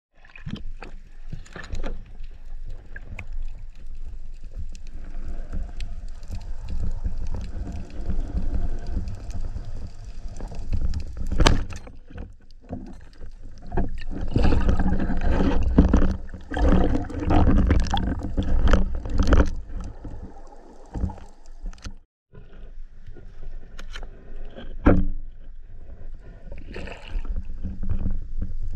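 Muffled underwater sound picked up through a camera housing: a low, uneven rumble and wash of moving water with scattered clicks and knocks, a sharp one about eleven seconds in.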